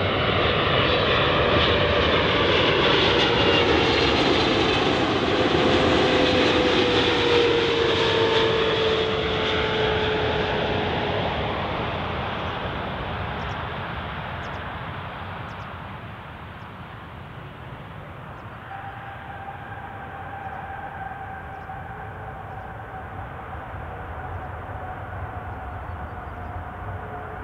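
Boeing 777-300ER's GE90 jet engines on landing, loud as the airliner passes with a whine that falls in pitch, then fading over the next several seconds. A fainter steady whine carries on near the end.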